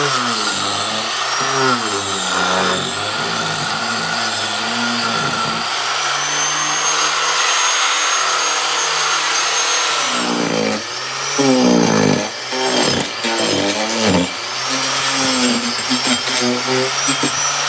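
Power tool cutting into rotted log, its motor pitch dipping and recovering again and again as it bites into the wood. A thin high whine runs through the middle.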